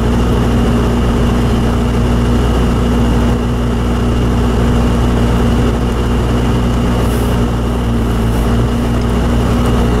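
Steady cabin drone of a 1990 Toyota 4Runner SR5 on the move: its 3.0 V6 engine and road noise mixed with the heater blower running on high.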